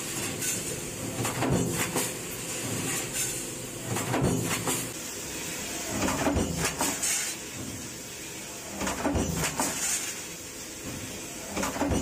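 Sheet-metal stamping press working a stamping die. Repeated stroke clunks with metal clatter come at uneven spacing, roughly one every one to two seconds, over a steady machine hiss.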